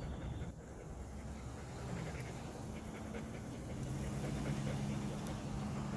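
A dog panting, with a low steady hum beneath it that is loudest from about four seconds in.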